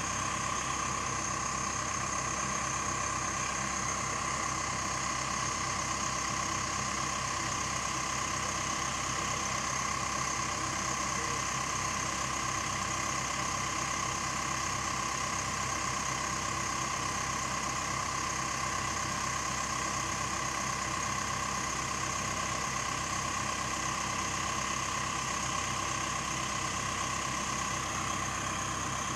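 Case 580 Super L backhoe loader's diesel engine idling steadily.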